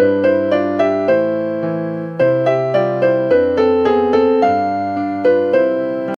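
Intro music played on an electric piano, a melody of struck notes and chords that cuts off suddenly at the end.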